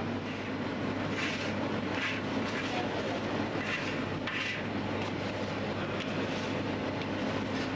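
Steady low machine hum of bakery equipment, with a few short scraping swishes as hands scoop soft barley dough off the sides of a steel dough-mixer bowl.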